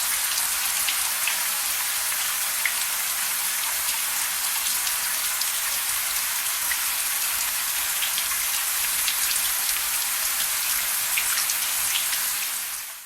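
Rain falling steadily: an even hiss with many single drops ticking through it. It fades out at the very end.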